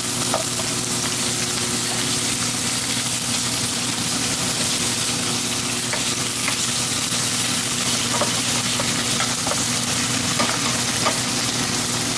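Thick slabs of pork belly sizzling steadily in a nonstick frying pan, with a few faint pops of spitting fat over a steady low hum.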